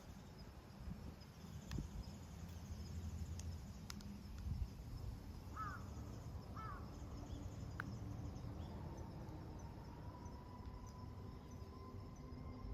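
A bird calls twice, short calls about a second apart, over a low steady wind rumble.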